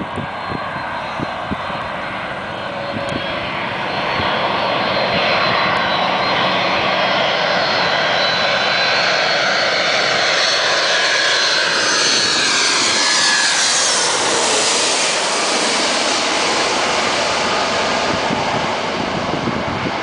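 Jet airliner on landing approach passing low overhead: its engines' roar builds about four seconds in and stays loud, with whining tones that fall in pitch as it goes past, then eases off near the end.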